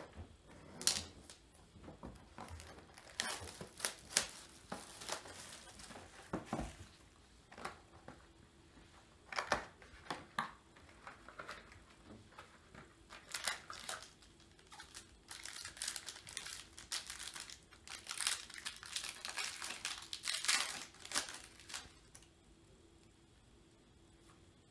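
Plastic wrap and packaging crinkling and tearing as a sealed trading-card box is cut open with a knife and its card packs are pulled out and handled, in irregular short bursts with pauses between. It quietens near the end.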